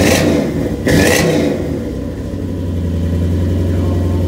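Toyota 1UZ V8 running through a side-exit exhaust with stainless tips: blipped twice in quick succession, near the start and again about a second in, then settling back to a steady idle.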